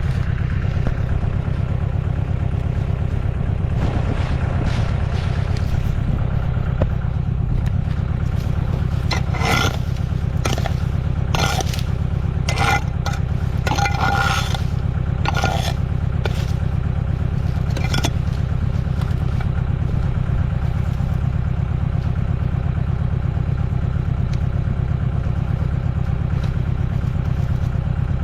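An engine idling steadily. From about 9 to 16 seconds in, a series of short, hard scrapes and knocks, like concrete blocks being set against each other.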